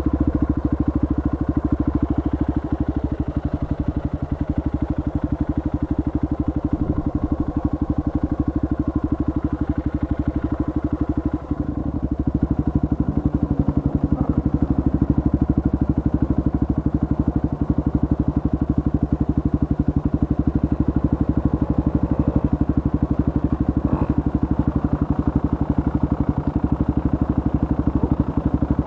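Trail motorcycle engine running steadily with a fast, even firing pulse, dipping briefly about eleven seconds in.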